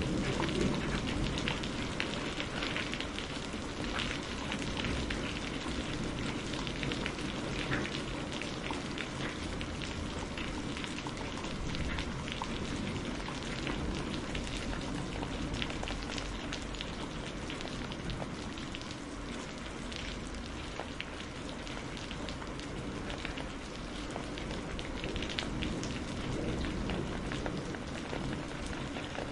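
Steady heavy rain pouring off a roof's edge and splashing, with many separate drop hits through the constant hiss.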